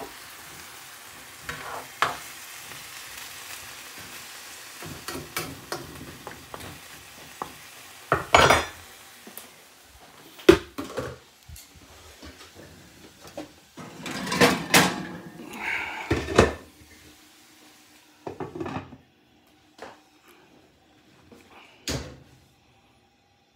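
Meat sizzling in a frying pan, with pots, pans and a pan lid clattering in a string of sharp knocks and scrapes. The sizzle thins out after about eighteen seconds, and a last knock comes near the end as the glass lid goes on the pan.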